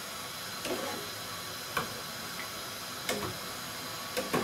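A spoon clinks lightly against the metal milk boiler four times, about a second apart, as the heating milk is stirred, over the steady hiss of the gas burner.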